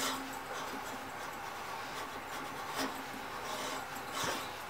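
Honda GCV160 lawnmower engine turned over slowly by hand at its exposed flywheel, with soft rubbing and a few light clicks. The piston is working against compression, a good sign for the engine.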